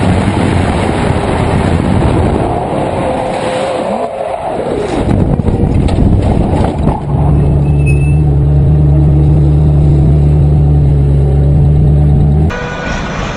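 Ferrari sports car running at speed on a track, its engine mixed with heavy wind rush on the microphone. The engine note swings briefly partway through, then from about seven seconds in holds a steady drone. The sound cuts off suddenly near the end.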